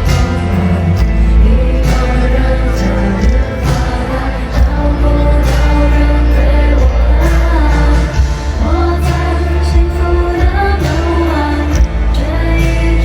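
Live pop concert music with a heavy bass line and a woman singing.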